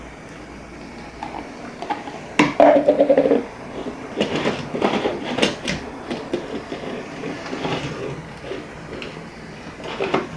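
A metal butter dish knocking and clattering against a hardwood floor as a dog noses it and a baby grabs at it, with a run of quick clatters about four to six seconds in.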